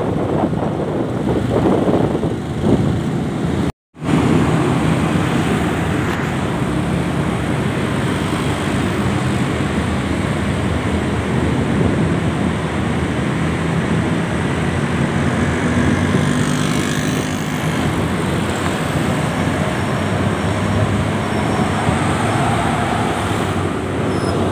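Busy road traffic of motorcycles and cars running through a concrete underpass: a steady mix of small engines and tyre noise. It breaks off for a moment about four seconds in.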